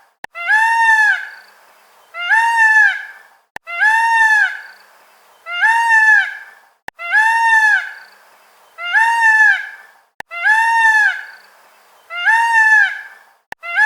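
Indian peafowl (peacock) calling over and over, about eight loud honking calls, each arching up and then down in pitch. The calls come evenly about every second and a half, all alike, with faint clicks between some of them.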